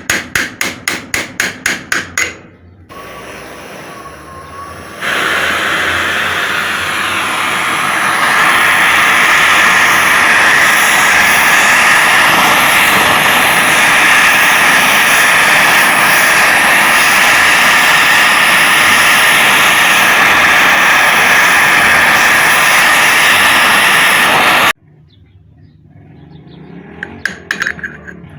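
Rapid light hammer taps, several a second, on a rusted, seized threaded part of a centrifugal water pump held in a vise, to loosen it. About five seconds in a blowtorch flame starts, hissing steadily with a faint whistle for some twenty seconds while it heats the stuck part, then cuts off suddenly. Near the end the rapid tapping starts again.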